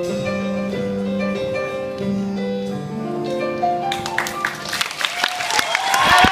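Instrumental outro of a rap song: held piano and string notes with no vocals. About four seconds in, applause breaks in and grows, with shouts and whoops from the audience near the end.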